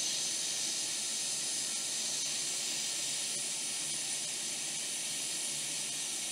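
Hot air rework station blowing at 50% airflow, a steady hiss of air, as it heats a surface-mount capacitor on a laptop motherboard to desolder it.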